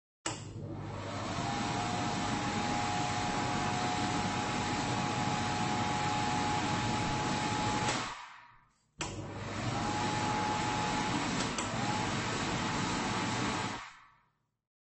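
Automatic hand dryer switching on suddenly and blowing a steady rush of air with a motor whine, then winding down after about eight seconds. It starts again about a second later, runs for about five seconds and winds down.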